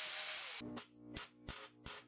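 A power grinder on the car's steel rocker panel, which stops about half a second in. Background music with a steady beat follows.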